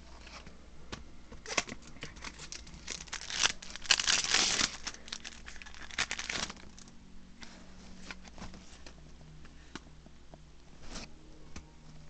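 Foil booster-pack wrapper crinkling and tearing open, in a dense burst of rustling that is loudest about four seconds in. After that come scattered light clicks and rustles of trading cards being handled.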